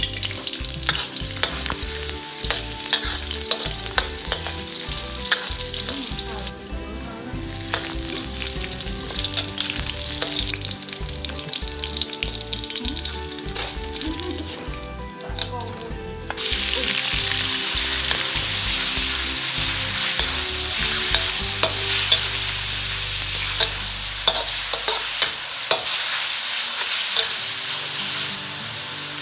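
Stir-frying in a wok: garlic and chillies sizzling in hot oil while a metal ladle scrapes and clinks against the pan. About sixteen seconds in the sizzling suddenly gets louder as minced pork goes into the wok, and the scraping goes on.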